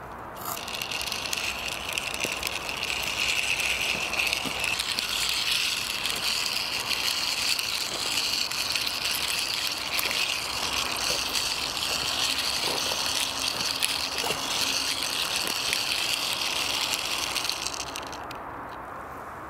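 Small toy car rolling while pushed by hand over rough ground, its wheels and axles rattling and clicking steadily; it starts about half a second in and stops suddenly near the end.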